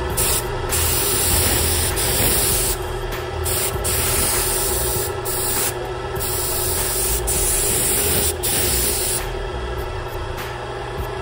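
Paint spray gun hissing steadily as it lays purple paint along a masked edge, with a few brief breaks in the spray.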